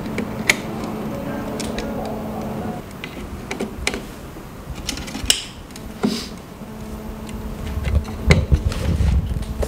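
Wire connectors being handled and pushed onto a circuit board: scattered small clicks and plastic rustles over a low steady hum, with a few heavier low knocks near the end as the board is moved.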